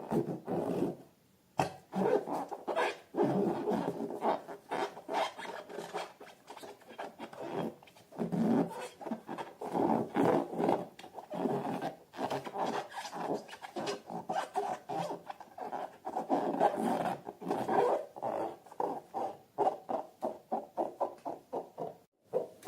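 Hands squeezing and working slime and balloon rubber: a fast, irregular run of sticky squishes, crackles and rubbing, with brief pauses.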